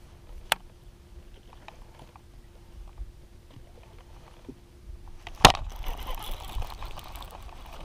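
Handling noise right at the microphone: a few light clicks, then a sharp knock about five and a half seconds in as a hand comes against it, followed by rubbing and rustling.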